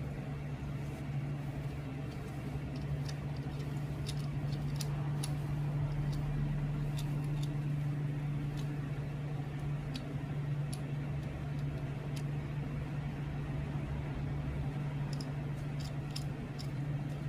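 A steady low hum, with scattered light clicks and taps over it.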